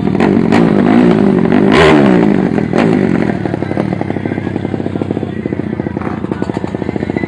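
Drag-racing motorcycle engine revving hard and unevenly at the start line, its pitch rising and falling several times with sharp pops, then about three seconds in the loud revving gives way to a quieter, steady rapid engine pulse as the bike pulls away.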